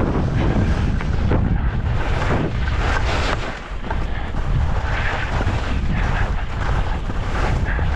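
Wind buffeting the microphone of a skier moving downhill, with the hiss and scrape of skis on snow rising and falling through the turns.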